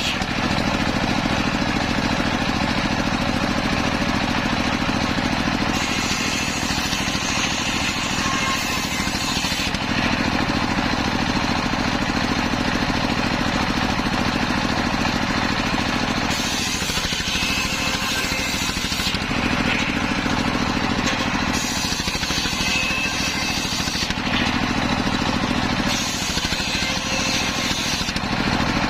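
Homemade engine-driven circular sawmill running steadily with a constant hum. Four times, for a few seconds each, a hissing rush rises over the hum as the blade cuts through teak.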